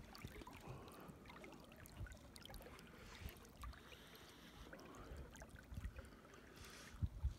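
Faint water lapping and swishing along the hull of a slowly trolling boat, with a few short low thumps near the end.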